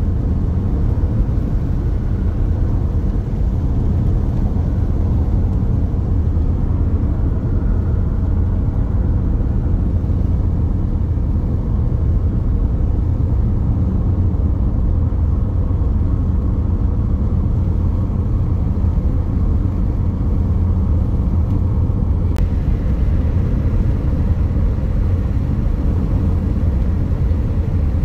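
A car driving at a steady speed: a low, even rumble of engine and tyres on the road, with no revving or change in pace.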